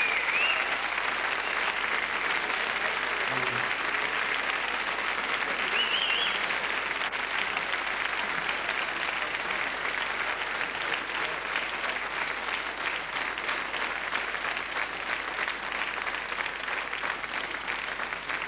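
Audience applauding steadily, dying down slowly near the end.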